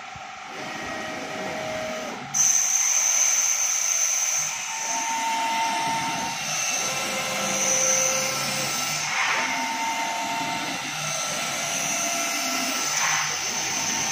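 CNC carpet cutting machine running as its head cuts plush carpet: motors whining at shifting pitches over a steady hiss, getting louder about two seconds in.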